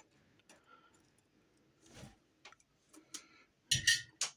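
Small metal jewelry pieces clicking and clinking as they are handled and set down on a buckle. A few faint ticks, then a quick run of sharper clicks near the end.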